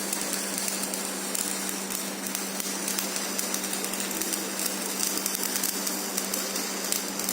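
Stick-welding arc of a rutile ESR-13 electrode at 110 amps running a vertical-up fillet weld: an even, steady crackle and sizzle, the sign of a stable arc with little spatter. A steady low hum runs underneath.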